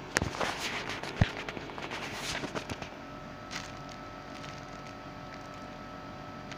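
Clear plastic wrapping crinkling and crackling as it is handled: a busy run of sharp crackles over the first three seconds, then only faint background.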